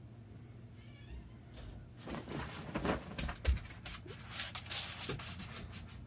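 A pet making soft cries, with rustling and shuffling in bedding that grows busier from about two seconds in.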